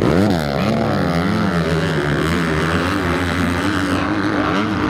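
Motocross dirt bike engines racing, the pitch sweeping up and down as riders work the throttle and shift gears, with a sharp rev-up at the start.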